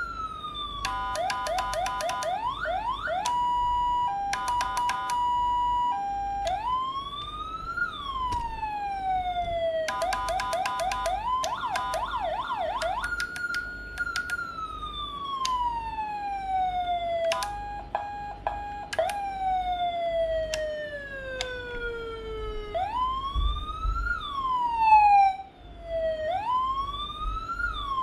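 CJB 200-E electronic siren module sounding through its speaker, switched between its tones every few seconds: quick repeated rising yelp sweeps, steady and alternating two-tone beeps, and a slow wail that rises and falls.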